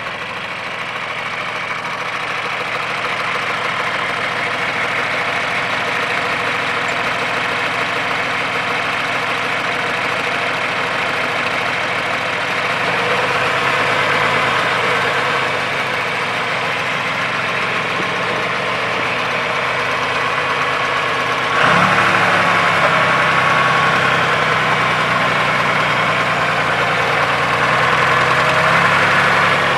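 John Deere 2955 tractor's six-cylinder diesel engine running steadily at idle. The sound grows gradually louder, then steps up suddenly about two-thirds of the way through.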